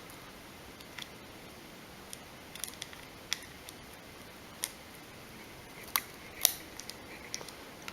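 Irregular small sharp clicks and ticks of a thin pry tool worked under a Galaxy Nexus phone's charging port, wiggling it to break the glue that holds the port.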